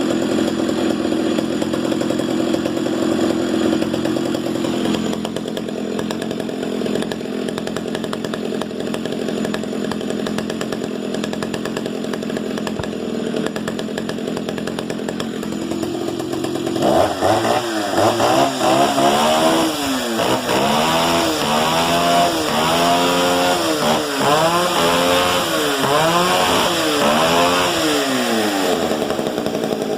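Stihl 08S 60cc two-stroke chainsaw engine idling steadily, then, a little past halfway, revved up and back down about eight times in quick succession before settling back to idle near the end.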